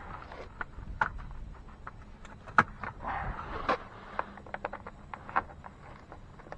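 Scattered clicks, taps and light scraping from hands working on a pickup truck's plastic door sill trim plate, pressing it down and working at its screw holes.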